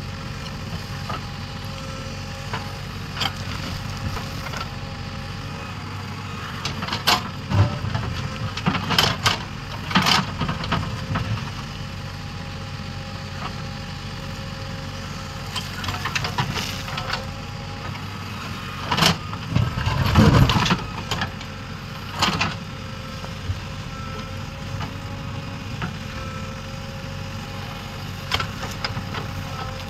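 JCB 3DX backhoe loader's diesel engine running steadily as the backhoe digs into stony ground. Bursts of clanks and scrapes come from the bucket working through rock and soil, heaviest about a third of the way in and again around two-thirds.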